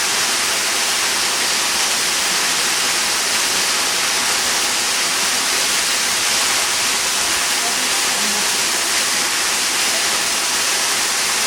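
A waterfall's falling water rushing in a loud, steady, unbroken wash of noise.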